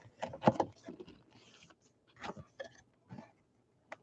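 Cardboard trading-card box being handled as its lid flap is lifted and items are pulled from inside: a cluster of knocks and taps, the loudest about half a second in, a short papery rustle, then a few more knocks in the second half.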